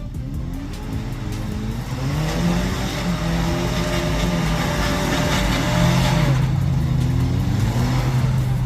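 4x4 vehicle engine accelerating: its pitch rises over the first two seconds and holds high with a rushing noise for several seconds. It then drops off and picks up again near the end.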